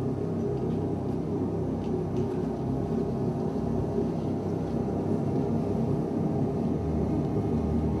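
Live ambient drone music: a steady, dense hum of stacked low tones, with a deeper bass tone swelling in near the end.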